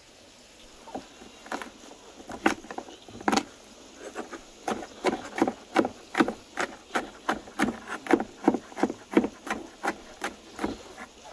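Large chef's knife chopping garlic cloves on a wooden cutting board: sharp knocks of the blade on the board, a few scattered at first, then a steady rhythm of about three chops a second that stops near the end.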